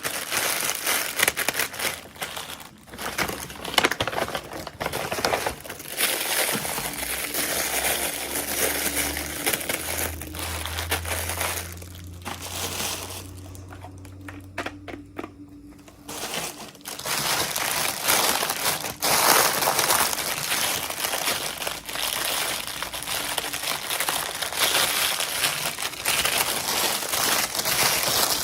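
Plastic packaging crinkling and rustling as it is handled and unwrapped, with a brief lull near the middle.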